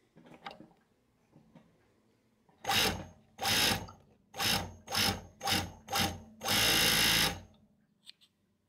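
DCR942 industrial overlock machine running in short bursts as it overcasts the edge of a knitted piece: six brief runs of under half a second each, then one longer run of about a second.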